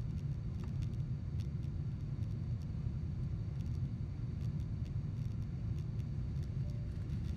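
Steady low rumble inside the cabin of a Boeing 777-200ER climbing after takeoff: engine and airflow noise heard from a window seat over the wing, with a few faint light ticks.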